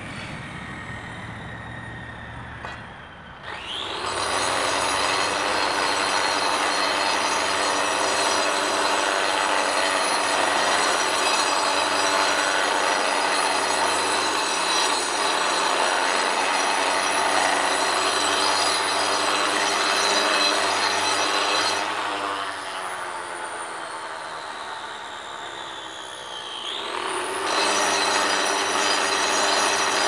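Handheld electric angle grinder cutting into a stone block, with a high, steady whine under load. It winds up about three and a half seconds in and cuts steadily. Around twenty-two seconds it eases off and runs lighter, then winds up and bites into the stone again near the end.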